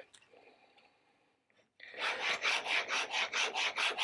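Chisel in a roller honing guide rubbed back and forth on a coarse diamond sharpening plate, starting about two seconds in: a fast, even rasping of steel on the plate, about four strokes a second. It is honing the 30-degree secondary bevel to raise a burr.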